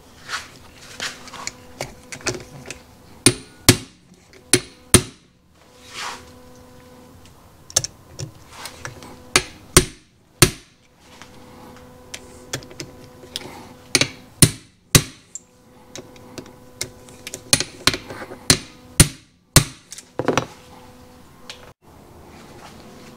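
Sharp knocks in irregular clusters, several strokes at a time with short pauses between: a hammer striking a hand impact driver to run down and tighten the crankcase screws.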